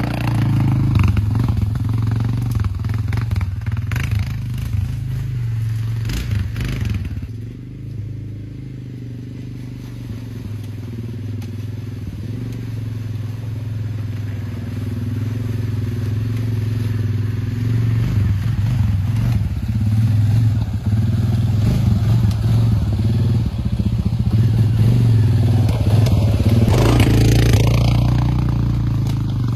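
2008 Suzuki KingQuad 750 ATV's single-cylinder engine running on the move, with scattered knocks. It eases off about seven seconds in and builds up again near the end.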